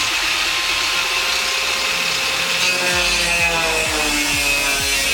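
Power tool cutting through the thin sheet-metal fender of a car, a steady grinding whine that shifts in pitch as it bites. The cutting throws sparks and hot embers.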